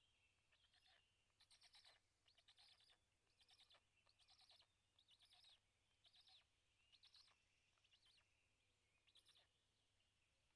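Faint bird calls: short raspy notes repeated about once or twice a second, with a faint thin whistle behind them.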